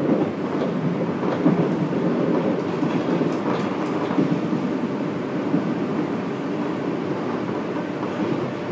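Running sound of a Fukuoka City Subway 1000N series train, heard inside the car: a steady rumble of wheels on rail, with a few faint clicks.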